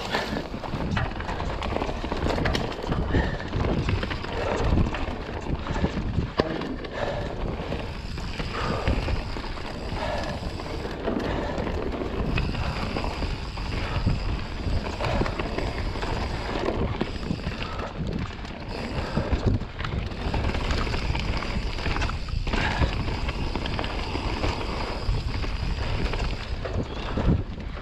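Mountain bike tyres rolling fast down a dirt and rock trail. The bike rattles and knocks on every bump, with wind on the microphone.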